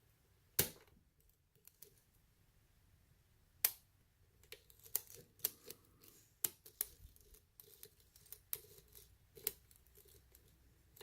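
Small metallic clicks and taps of a lock pick working the pins of a pin-tumbler lock under light tension during single-pin picking. Two sharper clicks about three seconds apart, then a run of lighter, irregular clicks.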